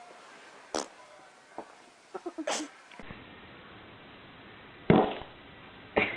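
Short fart noises, the loudest a sudden burst about five seconds in that trails off.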